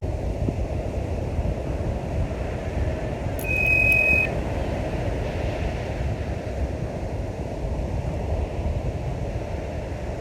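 Wind buffeting the microphone, a steady low rumbling noise. A single high steady tone sounds for about a second, about three and a half seconds in.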